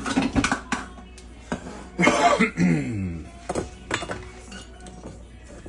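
Chef's knife chopping on a bamboo cutting board, a quick run of knocks in the first second and a couple more near the middle. A loud cough comes about two seconds in.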